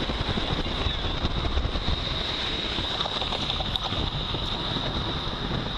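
Wind rushing into a moving car and buffeting the microphone, over steady road noise: the car is open to the wind, blowing in from all sides.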